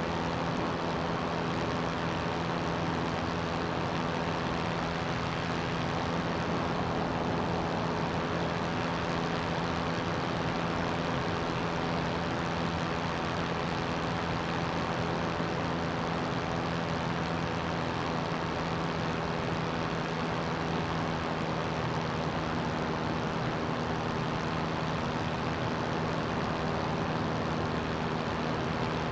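CGS Hawk ultralight's engine and propeller droning at a steady cruise setting in flight, an even engine hum with a rushing of air over it.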